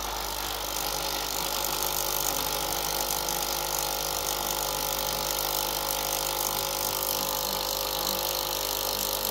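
Tchibo Cafissimo capsule coffee machine's pump running steadily as it brews a coffee, a constant even hum. The machine is heating and brewing normally again, with its thermal fuses replaced.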